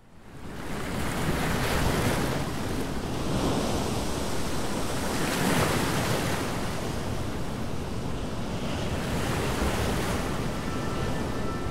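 Ocean surf breaking and washing over rocks, fading in from silence at the start and surging every few seconds.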